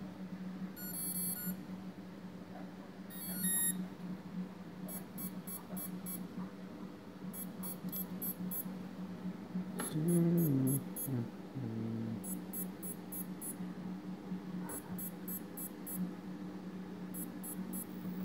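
Repeated groups of rapid, high-pitched electronic beeps, about five quick pips per group, recurring every two to three seconds over a steady low electric hum. About ten seconds in, a brief louder tone wavers and falls in pitch.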